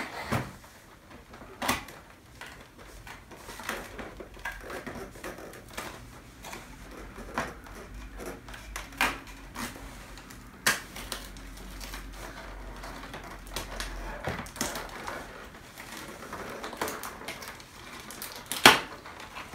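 Fingers picking and pressing at the perforated cardboard door of an advent calendar to open it: irregular clicks and taps on the cardboard, with one louder snap near the end.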